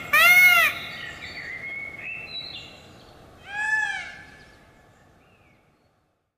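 Indian peafowl (peacock) calling: one loud arched honk just after the start, fainter calls behind it, and a last, quieter honk about three and a half seconds in before the sound fades away.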